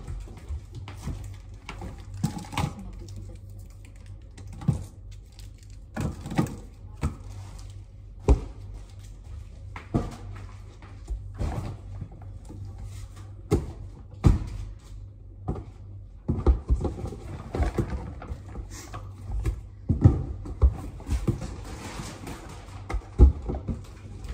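Irregular knocks, thuds and handling noises of items being picked up and set down, denser in the second half, over a steady low hum.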